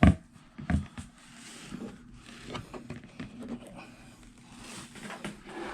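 Handling noise from a replica championship belt with a leather strap and metal plates being turned over: a loud thump at the start and another just under a second in, then scattered light knocks and rustling, scraping sounds of the leather and plates being moved.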